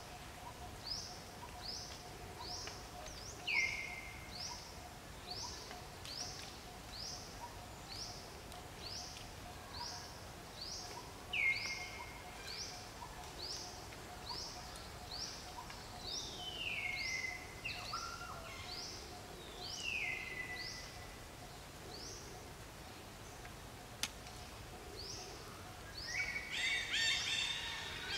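Outdoor ambience with a bird repeating a short, high, falling chirp nearly twice a second, joined now and then by a lower falling whistle. A louder burst of high chattering calls comes near the end.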